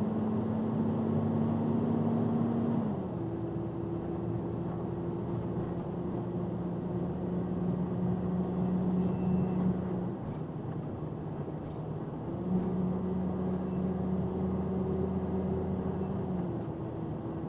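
Truck engine and road noise heard from inside the cab while driving: a steady hum whose pitch steps down about three seconds in, fades near ten seconds and comes back about twelve seconds in.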